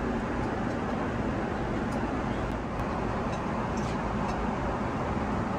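Steady rush of Boeing 777-300ER cabin noise in cruise, the airflow and engine noise heard from inside the cabin, with a few faint light clicks in the middle.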